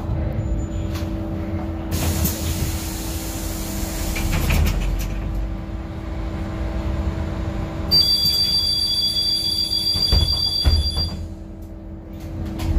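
Inside a Škoda 25Tr Citelis trolleybus at a stop: a steady electric hum, a loud hiss of compressed air about two seconds in, then a high two-tone beep for about three seconds as the doors work.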